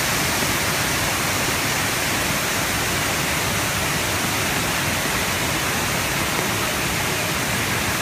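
Waterfall pouring into a pool: a steady rush of falling water.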